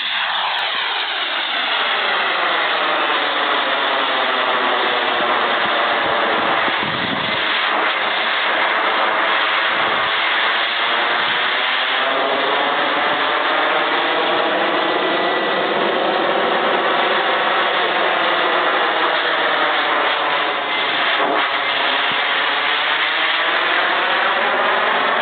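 Gas turbine engine of a Comp ARF radio-controlled model jet in flight: a continuous loud jet roar with a thin steady whine. The roar shifts in character as the jet sweeps past and away.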